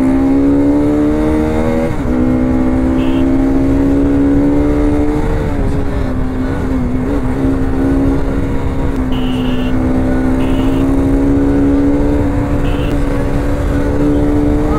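Bajaj Pulsar RS200's single-cylinder engine running at steady high revs while the bike cruises, heard from the rider's seat with wind rumble on the microphone; the engine note holds even, dipping briefly a few times.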